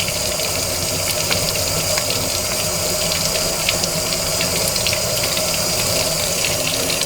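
Kitchen tap water running steadily onto the metal grinder disc of a Breville coffee maker as it is rinsed of stuck coffee grounds, with a few light clicks of handling.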